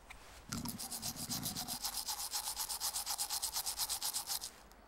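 Toothbrush scrubbing back and forth on teeth, a fast, even scratchy rhythm of about eight to nine strokes a second that stops shortly before the end.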